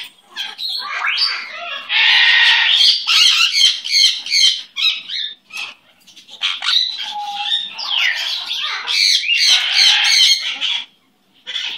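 Sun conures squawking and chattering loudly in two long stretches with a brief break between them, stopping shortly before the end.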